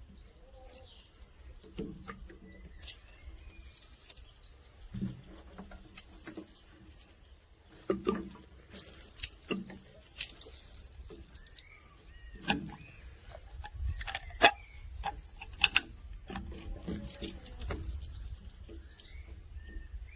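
Scattered clicks and knocks of a plastic water jerrycan being handled, with its tap and cap worked, while birds chirp faintly in the background.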